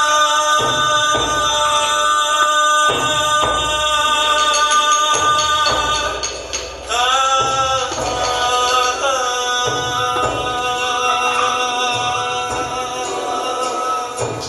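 Music with singing: long held notes that waver in pitch in the middle, over drum beats that come about once a second.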